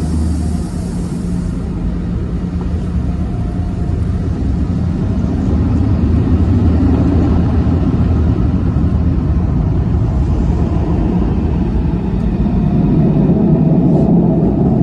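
Tunnel car wash machinery heard from inside the car: a steady low rumble, growing louder about three-quarters of the way through as the car nears the Sonny's dryer blowers. There is a brief hiss of water spray at the start.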